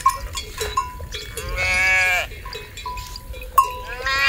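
Sheep bleating twice, one long call about a second and a half in and another starting near the end, over the repeated ringing of small livestock bells.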